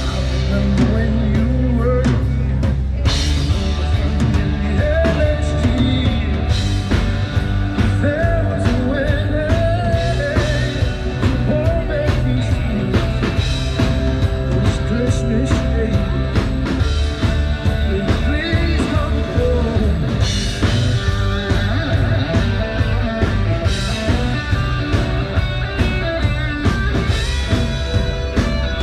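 Live rock band playing a song: a lead singer with acoustic guitar, backed by electric guitar, bass and a drum kit.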